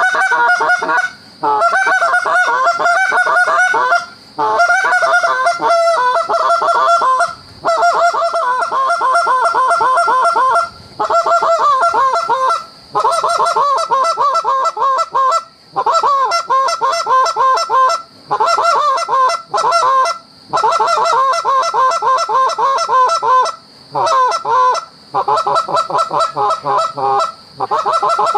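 Hand-blown goose call worked hard and close: fast runs of loud honks and clucks, each run one to three seconds long with short breaks between, calling to circling Canada geese.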